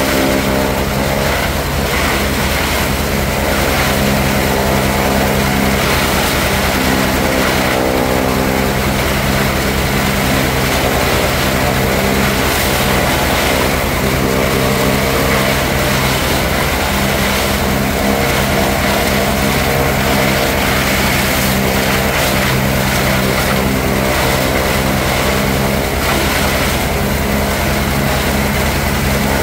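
Tractor and pull-type one-row forage harvester running steadily while chopping standing corn: a continuous engine and machinery drone with a mix of hum and rushing noise.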